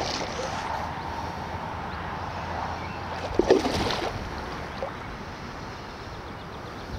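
Steady rush of wind and water noise, with one short voice-like sound about three and a half seconds in.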